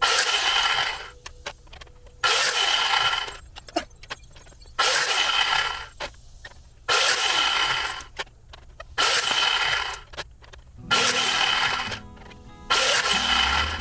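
A power cutting tool slicing through metal spoon handles in seven short bursts, one about every two seconds. Each burst starts abruptly with a high whine and fades as the cut finishes.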